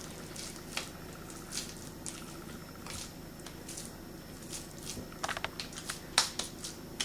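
Hands squishing and patting a cold ground-beef and egg mix into burger patties: scattered wet squelches and slaps, with a quick run of them about five seconds in and the loudest slap about a second later.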